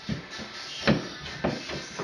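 Background music with a beat, with a few sharp knocks.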